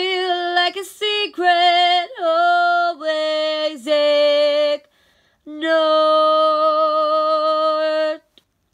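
A woman singing unaccompanied: a run of drawn-out notes with slight vibrato, a brief pause, then one long held note that ends about a second before the close.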